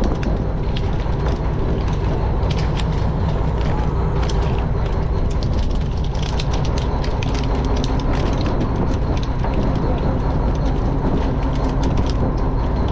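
Fishing boat's engine running with a steady low drone, with frequent light clicks and knocks of fish being handled and dropped into a plastic crate on deck.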